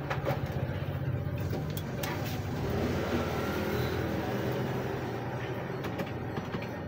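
Desktop PC powering on: a click near the start, then the CPU cooler and case fans spinning up into a steady whir over a low background hum.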